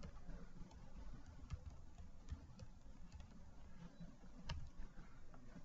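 Faint computer keyboard key clicks, a few scattered keystrokes spaced irregularly as a short line of text is typed.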